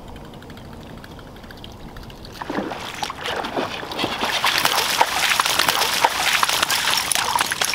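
Water splashing with many sharp splats, starting about two and a half seconds in and getting louder: a hooked largemouth bass thrashing at the surface as it is reeled in on a buzzbait.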